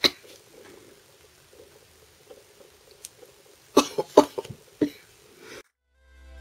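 Handling noise from a plastic nail practice finger and acrylic tools: a sharp click at the start, faint rustling, then a quick run of clicks and taps about four seconds in. Background music fades in at the very end.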